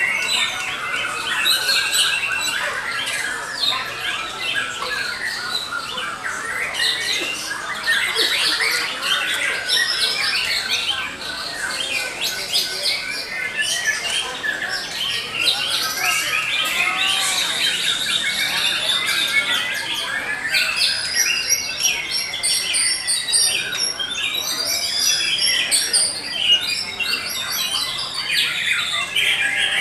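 Several caged white-rumped shamas singing at once, their varied whistles, trills and rapid chattering phrases overlapping without a break.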